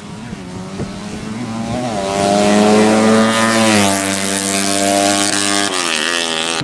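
Drag-racing motorcycle engine at high revs under hard acceleration, its pitch climbing then dropping in steps twice.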